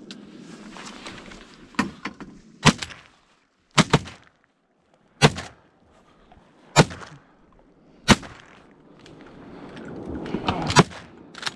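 A volley of about seven shotgun shots fired from a duck blind at incoming ducks, irregularly spaced a second or so apart, each a sharp blast with a short echo.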